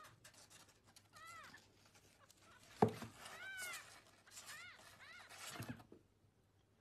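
Newborn kitten mewing: several short, high-pitched mews, each rising and falling in pitch. About three seconds in there is a knock, and a softer thump comes near the end, as the kitten scrambles in a cardboard box.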